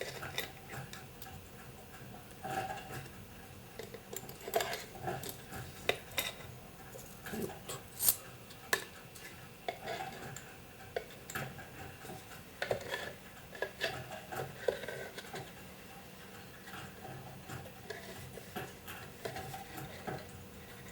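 Scattered light clinks and rattles of small metal inline-skate bearing parts being handled and set down, at irregular intervals with no steady rhythm.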